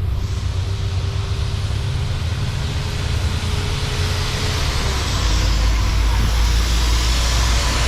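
Diesel train on the move, a steady low engine rumble with a broad hiss of wheel and rail noise; the rumble grows louder about five seconds in.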